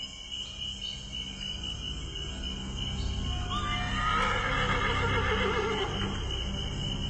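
A horse whinnies once, a quavering call of about two and a half seconds that starts about halfway through.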